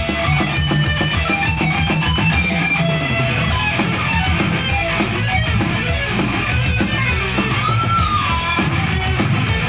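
Thrash metal recording: distorted electric guitars over bass and drums, with a lead guitar line playing shifting notes and bending one note up and back down about eight seconds in.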